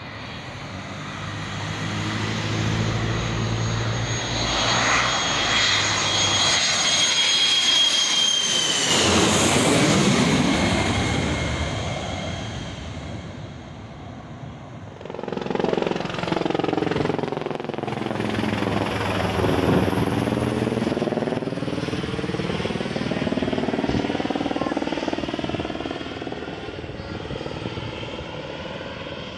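Jet aircraft on landing approach passing low overhead: engine noise swells, and the high turbine whine falls sharply in pitch as the first jet passes about nine seconds in. A second jet's engine noise swells and passes from about fifteen seconds, then fades.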